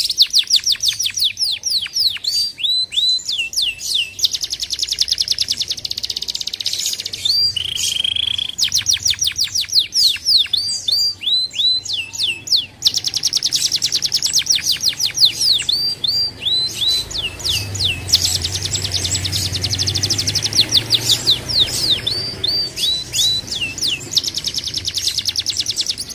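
Canary singing continuously: fast trills of rapidly repeated high notes, broken by runs of quick falling whistles.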